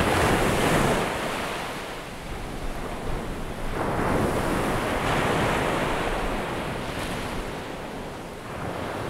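Ocean waves washing in, a steady rush that swells and eases in slow surges.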